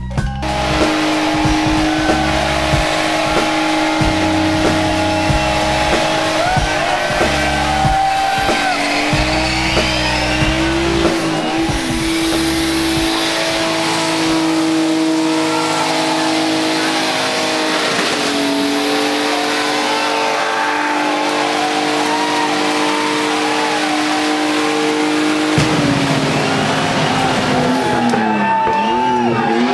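Drift cars sliding with sustained tire squeal and revving engines, mixed with a loud music track with a pulsing bass in the first half.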